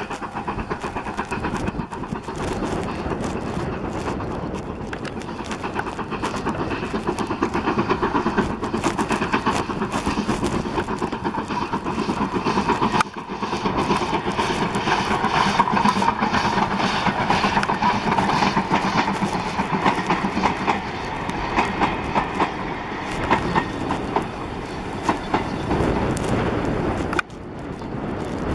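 BR Standard steam locomotives hauling trains: rhythmic exhaust beats over wheels running on the rails. The sound cuts abruptly twice, about 13 seconds in and near the end, as one passing train gives way to the next.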